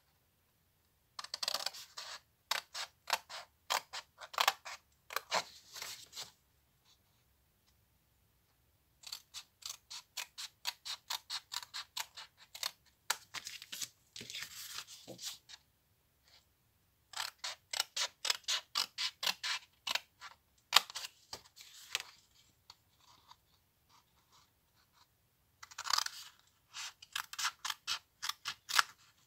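Scissors snipping through cardstock in four runs of quick cuts, about four snips a second, with short pauses between runs.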